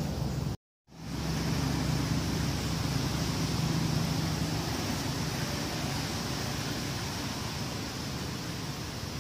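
Steady outdoor background noise: a constant hiss with a low rumble. It drops out to a moment of dead silence under a second in, then resumes. No monkey calls stand out.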